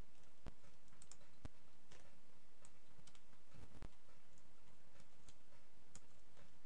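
Scattered clicks of a computer mouse being used to pick a folder and scroll a file list, with a duller knock just before the middle, over a steady faint hiss.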